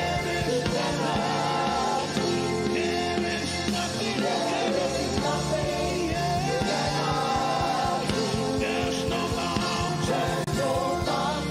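Live worship band playing a steady beat, with a voice singing or vocalising over it.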